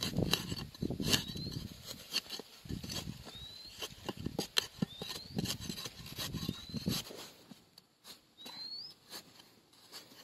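Rustling with sharp clicks and knocks, which quieten about seven seconds in. A bird repeats a short rising whistle every second or two.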